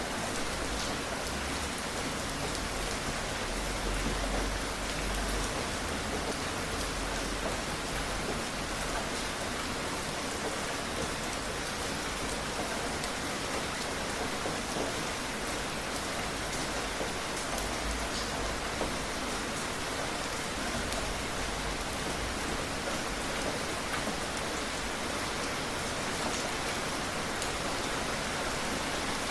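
Steady rain falling, an even hiss with scattered drops pattering on surfaces.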